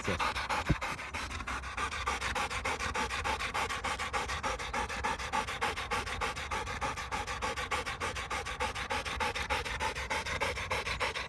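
A Labrador retriever panting rapidly in a steady, even rhythm, out of breath from running up and down a hill.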